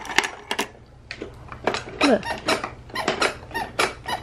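Plastic toys on a Skip Hop baby activity center's tray being handled and spun, giving a fast run of sharp clicks and rattles with a brief pause about a second in.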